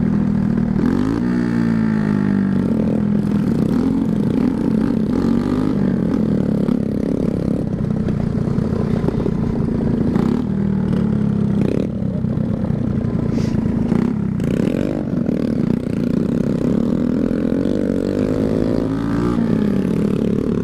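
Small motorcycle engines, among them a 49cc Shineray, running on bare exhaust pipes with no mufflers. The engines rev up and down again and again as the bikes ride along.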